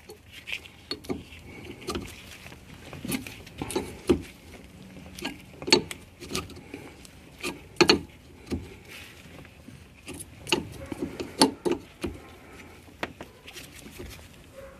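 Irregular sharp metal clicks, taps and clinks of a wrench working a -6AN fitting threaded into an H22 thermostat housing.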